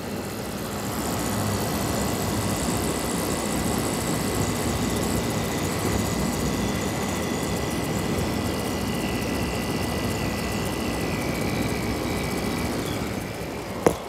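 Mid-1980s Emerson Quiet Kool 7000 BTU window air conditioner running: the steady whir of its fan and rotary compressor, with a thin high tone held over it. A single sharp tap just before the end.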